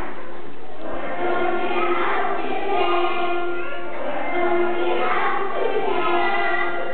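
A group of preschool children singing a song together, with several long held notes.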